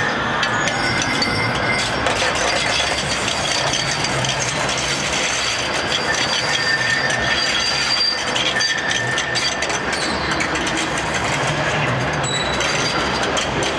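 Manchester Metrolink M5000 tram, two cars coupled, moving past close by: steady rumble and rattle of wheels on rail with many small clicks, and a thin high whine that comes and goes.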